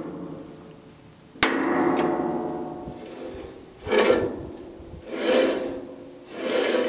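Thin steel band blade of a Wood-Mizer LT10 bandsaw mill being worked by hand around its wheels, with the engine off. A sharp metallic clank about a second and a half in rings on for a couple of seconds, then three shorter ringing scrapes follow.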